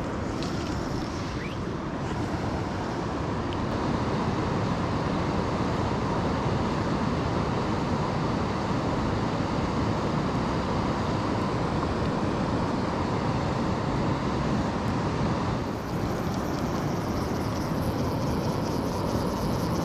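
River water running steadily: a continuous rushing noise.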